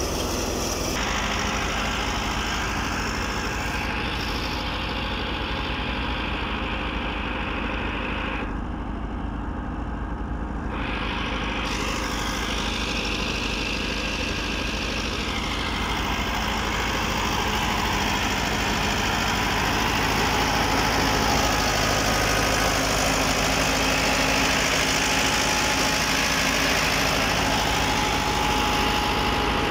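Massey Ferguson 385 tractor's four-cylinder diesel engine running steadily under load, powering a belt-driven thresher whose steady rushing noise mixes with it. The sound grows a little louder past the middle.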